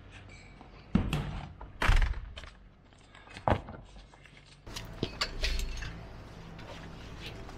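Three loud thunks, the second the loudest, then a stretch of clicking, knocking and rustling handling noise over a low rumble.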